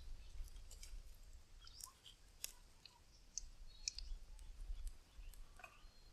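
Faint scattered clicks and crackles from a small wood fire and the oil heating in a steel kadai over it, with a few short high chirps and a low rumble underneath.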